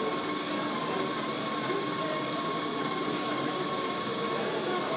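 A steady high-pitched electric whine from the small motors of a conveyor sorting rig as its robotic arm lifts a block off the belt and swings it aside. It sits over an even background hum.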